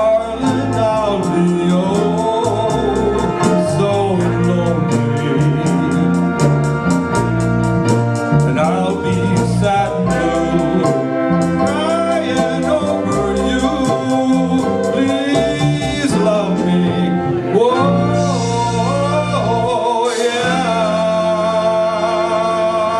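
Music: a song with a singing voice over a band, with a steady drum beat.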